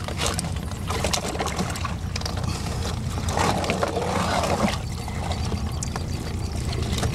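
Wet clumps of farmed mussels being handled at a boat's edge: shells clicking and knocking, with water pouring off in a burst around the middle, over a steady low rumble.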